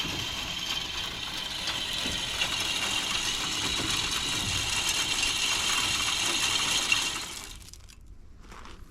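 Deer feeder's spinner motor running on a test cycle, a steady mechanical whir that stops abruptly about seven and a half seconds in.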